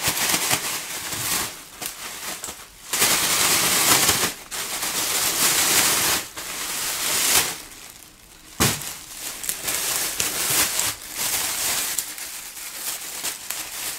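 Thin plastic bag crinkling and rustling as it is shaken to toss whole champignon mushrooms with oil, salt and pepper inside. It comes in loud bursts with short pauses, and a sharp click sounds about eight and a half seconds in.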